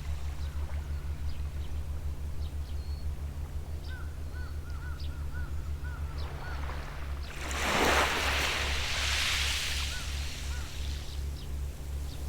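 A small wave washing up on the shore about halfway through, the loudest sound, swelling and fading over a couple of seconds. A bird calls with a quick run of short repeated notes before it, and a distant boat engine throbs steadily and low throughout.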